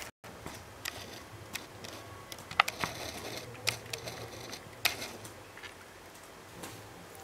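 Handling noise: scattered light clicks and taps with a soft rustle as hands fiddle with a small object close to the microphone.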